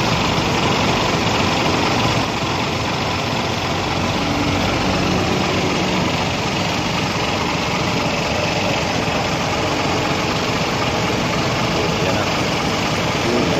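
An engine idling steadily, without a break.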